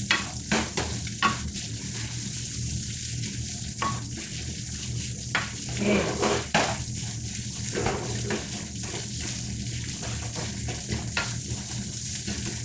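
Fried rice sizzling in a frying pan while a ladle stirs and scrapes through it, with short scraping and tapping strokes of the ladle against the pan over a steady hiss.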